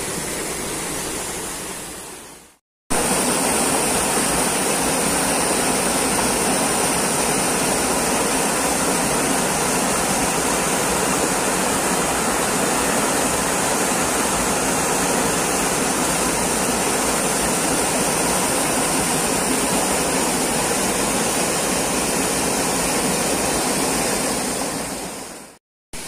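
Mountain stream rushing over rocks, a steady water rush. It fades out briefly about two and a half seconds in, then comes back louder and steady, and fades out again just before the end.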